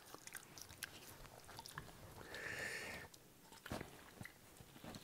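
Faint wet mouth sounds of a dog licking and smacking its lips, many small clicks, as a green tea and apple cider vinegar flush is squirted into its mouth. A brief soft hiss comes a little past two seconds in.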